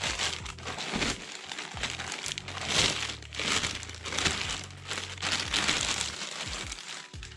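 Clear plastic bag crinkling in irregular bursts as a helmet is pulled and worked out of it by hand.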